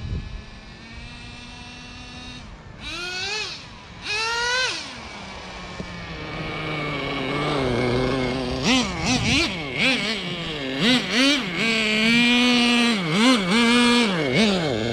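Traxxas Jato 3.3's two-stroke nitro engine running and being revved: two rising revs a few seconds in, then a steady run broken by a string of quick throttle blips, its pitch jumping up and falling back again and again.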